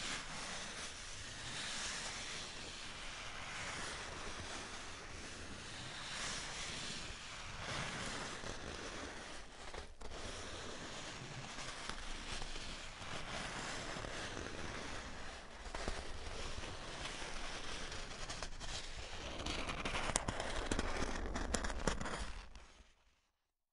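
Styrofoam being handled, a continuous crackling, squeaky texture that swells and eases every few seconds, louder near the end before it stops.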